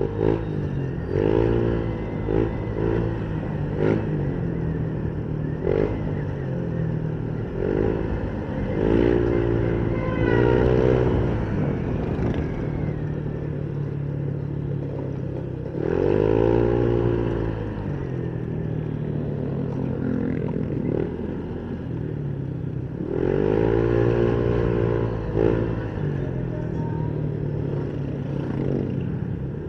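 Motorcycle engine running while riding, its pitch rising and falling about four times as the rider revs and eases off.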